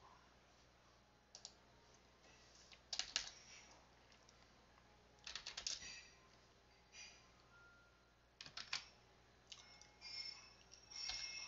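Computer keyboard keys clicking faintly, in short groups of a few keystrokes every second or two.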